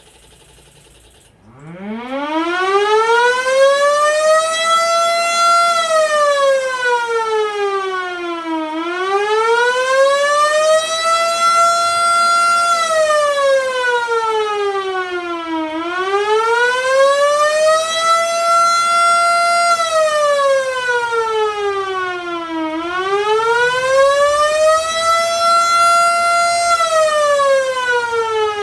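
LK-SV-2 emergency-vehicle siren sounding a slow wail. It starts about a second and a half in and winds up from a low pitch, then falls and rises again about every seven seconds, holding briefly at the top of each rise.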